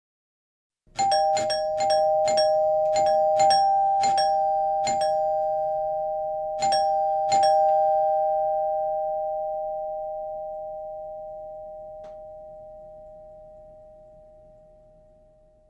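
Two-tone doorbell chime rung rapidly about a dozen times, the presses coming in quick succession and then more slowly. Its two notes ring on and fade out gradually after the last strike.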